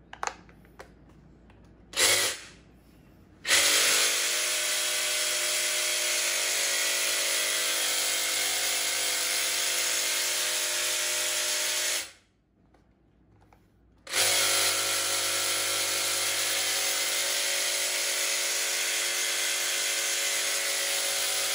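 Makita UH007G 40V cordless hedge trimmer running, its blades cutting back and forth. After a few clicks, there is a short burst about two seconds in, then a steady run. It stops for about two seconds and then starts again and runs steadily.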